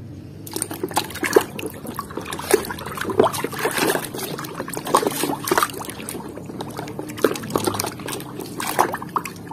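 A hand swishing and splashing through a tub of water, with irregular splashes and trickles beginning about half a second in.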